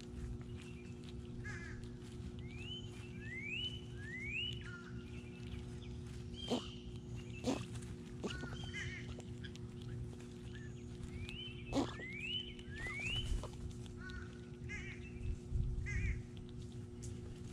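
Backyard birds singing and calling: clear whistled notes that rise in pitch, repeated in groups of two or three, with curling calls between them and a few sharp falling notes, the loudest, about six and a half, seven and a half and twelve seconds in. A steady low hum runs underneath.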